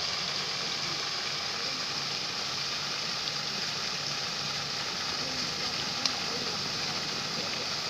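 Steady rushing noise with a low hum over the water, with faint voices. A fish splashes once, sharply, about six seconds in.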